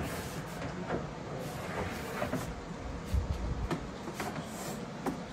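Handling noise from a snake hook and a plastic tub: scattered light clicks and knocks, with a heavier low thump about three seconds in, over a steady low rumble.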